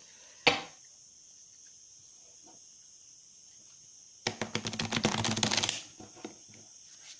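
A deck of laminated tarot cards being shuffled: one sharp card tap about half a second in, then a rapid flutter of cards riffling together for about a second and a half, about two-thirds of the way through.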